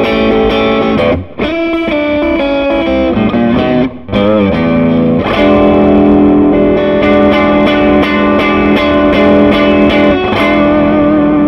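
Electric guitar overdriven through an SCW Audio Blackstone Overdrive pedal, a Blues Breaker-style overdrive, on its fatter, mid-heavy lower switch setting. Short riffs broken by two brief gaps, then a long chord left ringing through the second half.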